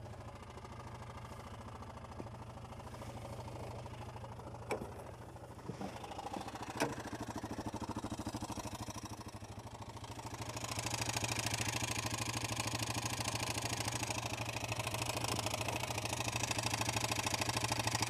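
Yamaha Viking side-by-side's single-cylinder engine running as it drives over snow, a steady pulsing rumble with a few sharp clicks. About ten seconds in it gets louder, with a hiss of tyres and snow added.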